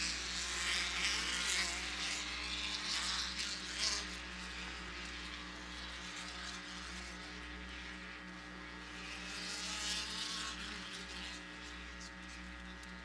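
Off-road racing buggy engines buzzing as the buggies race along the dirt track. They are loudest in the first four seconds and again around ten seconds in.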